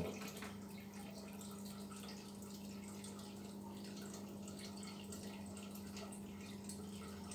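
Quiet background: a steady low hum with faint, scattered ticks.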